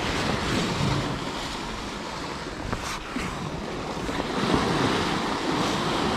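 Sea waves washing and foaming against a rocky shoreline, swelling and easing, with wind blowing across the microphone.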